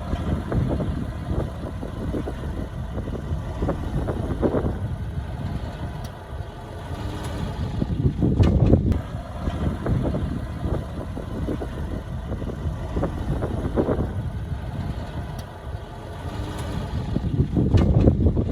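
Heavy construction-machine diesel engine running with a low rumble, swelling louder as it takes load about eight seconds in and again near the end.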